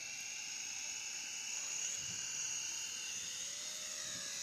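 Small electric motor and rotor of a toy remote-control helicopter running at speed: a steady high-pitched whine, its pitch dipping slightly near the end.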